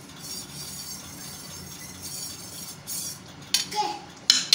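Milk being stirred in a non-stick pan, a soft scraping hiss, then two sharp clinks of kitchenware against the pan near the end.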